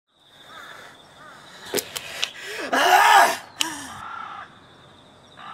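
Crows cawing, with one loud harsh caw about three seconds in, a few sharp clicks before it, and small-bird chirps over a steady high-pitched ringing tone.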